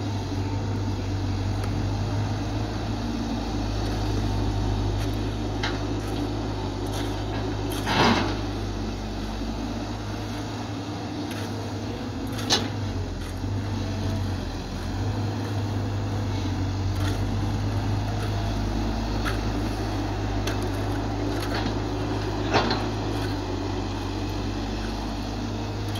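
Caterpillar 312 hydraulic excavator's diesel engine running steadily under working load while digging and swinging. Three sharp knocks stand out above the engine: about a third of the way in, halfway, and near the end.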